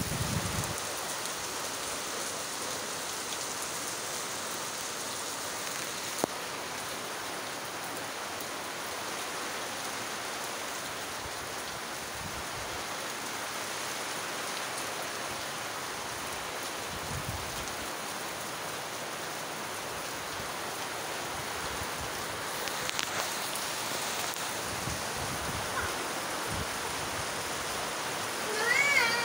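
Heavy rain falling steadily on roofs and trees. There is a single sharp tap about six seconds in, and a short wavering high call near the end.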